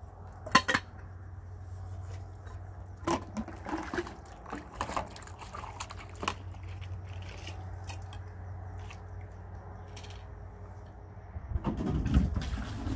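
Dishes washed by hand in plastic basins: water splashing with scattered clinks of metal cups, over a steady low hum. A louder stretch of low thumps comes near the end.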